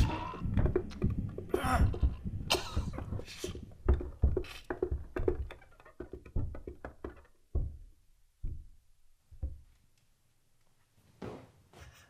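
Sound effects of the old man being killed in a struggle: a rapid flurry of thumps and knocks that thins out and fades over about eight seconds into silence, then a few faint knocks near the end.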